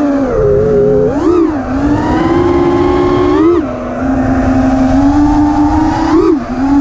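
Onboard sound of a 4S 5-inch FPV freestyle quadcopter: the whine of its brushless motors and props, swooping up in pitch with short throttle punches about a second in, at about three and a half seconds and just after six seconds. Rushing air noise sits underneath.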